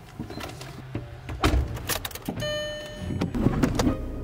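Car door shutting with a heavy thud about 1.5 s in, then a short electronic dashboard chime as the key goes into the ignition. A low engine rumble sets in near the end.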